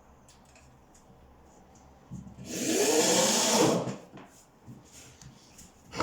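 Power drill-driver runs once for about a second and a half, about two seconds in, its pitch rising and then sagging under load as it drives a screw down into the floor to stop a squeak. A few light knocks follow.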